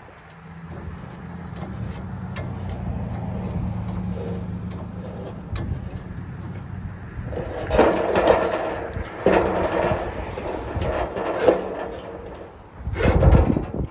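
The electric winch of a small trailer-mounted crane whirs steadily as it hoists a mangled steel shopping cart. Then the cart's wire frame clatters and scrapes against the metal as it swings in, with a heavy thump near the end.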